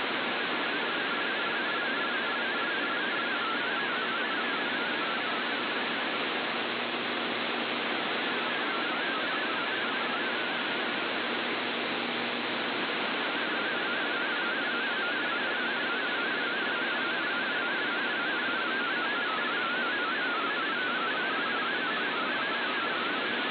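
Shortwave receiver hiss and static, with an MFSK32 digital text signal warbling faintly around 1.5 kHz under the noise. The signal fades out for several seconds in the middle and then returns, and its weakness makes the decoded text come out garbled.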